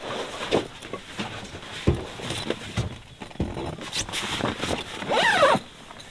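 Rustling and scattered clicks and knocks as a camper tent's fabric is handled and zipped shut. About five seconds in comes a short, wavering high-pitched call.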